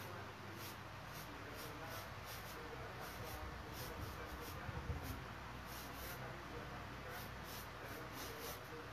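Quick strokes of a drawing tool across a canvas: soft scratching in short, irregular runs of several strokes a second, over a steady low hum.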